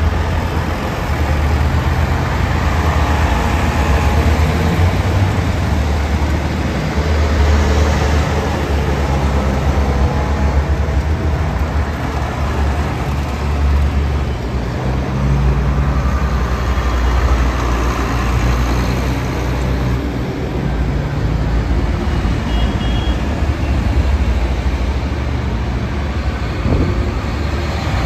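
Diesel farm tractors driving past one after another, their engines giving a steady low rumble that swells and eases as each one goes by, with a large John Deere rubber-track tractor coming past near the end.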